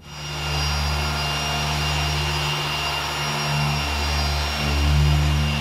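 Handheld electric car polisher running on the car's paint during a one-step polish, a steady motor hum with a thin high whine, swelling louder about five seconds in.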